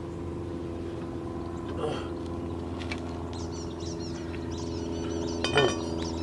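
Metal clinks from a four-way lug wrench on the lug nuts: a small knock about two seconds in and a louder, ringing clink near the end. Under them runs a steady low hum, and birds chirp in the second half.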